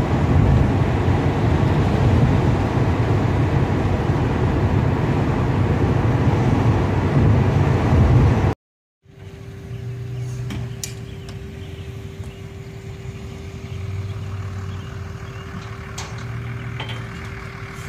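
Steady road and engine noise inside a car towing a trailer. After a sudden cut it gives way to quieter outdoor ambience with a steady droning tone and a few faint clicks.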